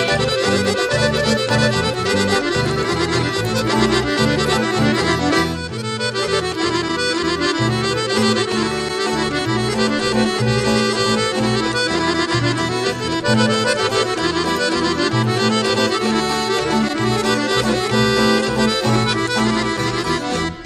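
Bulgarian folk dance music for a horo, led by accordion over a steady beat.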